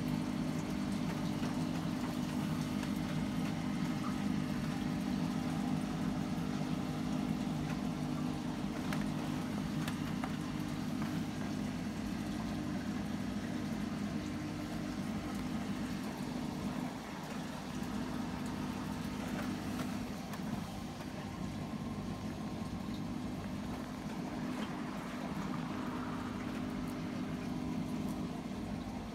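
Aquarium filter or pump running with a steady low hum, under a faint wash of water noise.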